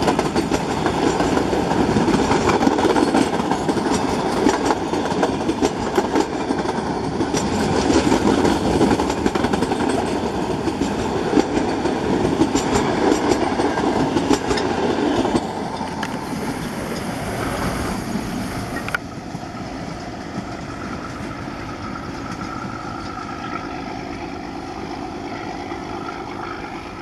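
Metre-gauge passenger train coaches passing close at speed: a loud rattling rumble from the wheels and bogies, with frequent clicks. About halfway through the sound drops away, and a fainter rumble follows from a train running away into the distance.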